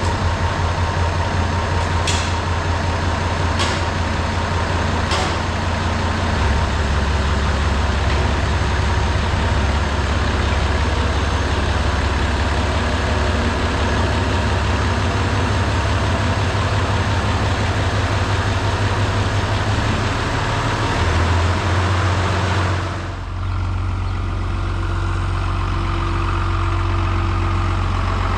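Farm tractor engine running steadily just after starting, a strong low hum, with three sharp clicks about a second and a half apart in the first five seconds. About 23 seconds in the sound changes abruptly and goes on at a lower, duller level.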